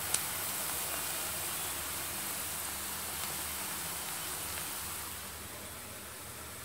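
Hot oil sizzling steadily around sliced onions deep-fried to a brownish colour, with a light click just after the start; the sizzle drops a little near the end.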